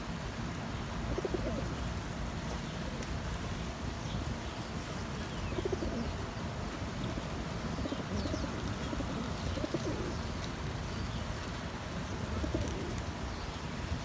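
Domestic pigeons cooing, several low coos spaced a few seconds apart, over a steady low background rumble.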